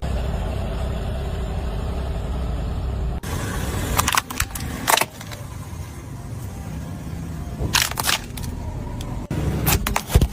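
A car engine runs with a steady low rumble, then cuts off suddenly and gives way to sharp cracking and crunching as toy buses are crushed under the car. The crunches come in three clusters: about four seconds in, near eight seconds, and just before the end.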